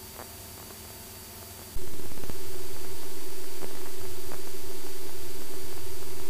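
A faint intercom hum, then about two seconds in a sudden jump to the loud, steady rush of a Cessna 172's engine and airflow in flight, with a steady drone running through it.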